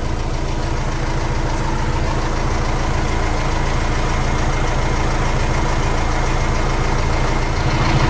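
VW Amarok's diesel engine idling steadily, heard from underneath the truck.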